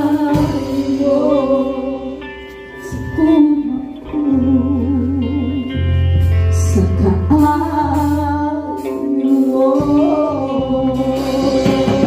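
Gospel worship song played live by a band: a singer with vibrato over guitar, sustained bass notes and drums.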